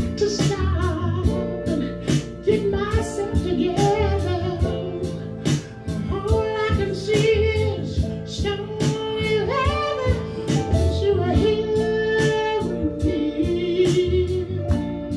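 A man singing a slow melody into a handheld microphone over instrumental backing with a steady beat.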